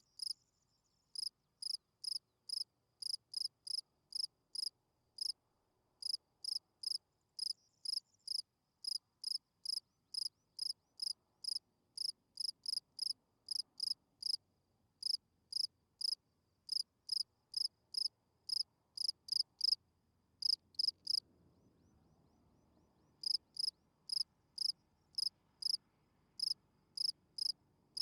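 A field cricket chirping: a male's calling song of short, high chirps at about three a second, with a few brief pauses and one longer pause of about two seconds near the end.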